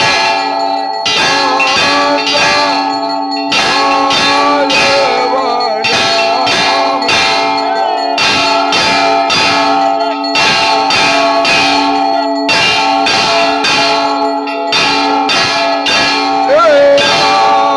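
Temple bells rung continuously in a fast, steady rhythm during the aarti. Their overlapping ringing blends into a sustained metallic tone, with a voice briefly heard over it near the start and near the end.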